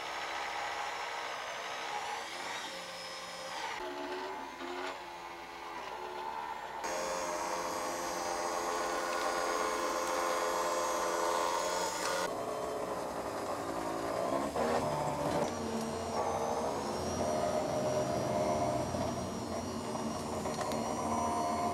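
Electric motor and drive of an Escalera stair-climbing hand truck whining as it climbs steps. The pitch sags and recovers a few times as the load is lifted, and the tone shifts suddenly twice.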